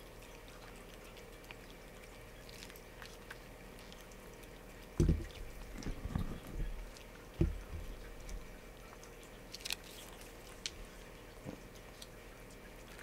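A cat eating a treat from a person's fingers: faint small clicks of chewing and licking, with a few dull thumps about five and seven and a half seconds in.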